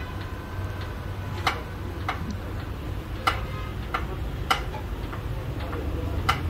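Noblelift TFD80 manual hydraulic scissor lift table being pumped up by its foot pedal, giving a sharp metallic click about every second or so with the pump strokes, over a steady low hum.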